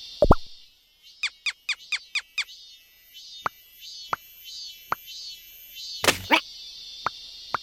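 Cartoon sound effects: quick falling-pitch chirps, some in a fast run of five and others one at a time, with a loud plop about a third of a second in. Two bigger swooping sounds come a little past six seconds, all over a steady high chirring background.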